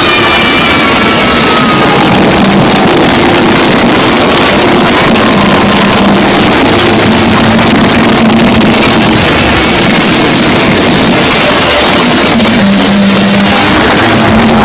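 Scary sound effect: a loud, harsh roar of noise over a low drone, with a falling whine in the first two seconds.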